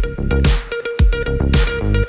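Electronic background music with a steady beat and deep bass.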